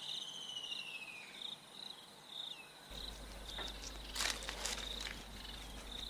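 Insects chirping: a short high chirp repeats about every half second. A thin falling whistle sounds in the first second, and a few sharp rustles and clicks come from about four seconds in.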